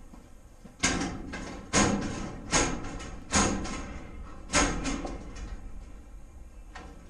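Five sharp clacks with a short metallic ring, a little under a second apart, then a few weaker knocks, as a plastic fish tape reel is jerked and banged to free the steel tape jammed inside it.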